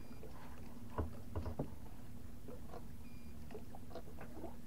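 A boat's engine running steadily with a low hum, with a few light knocks about a second in.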